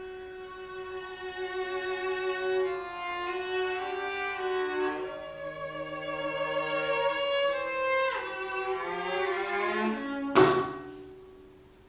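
Two cellos playing sustained bowed notes in a slow contemporary piece, with steep downward glissandi. About ten seconds in comes one sudden, sharp, loud stroke that rings and fades away to near silence.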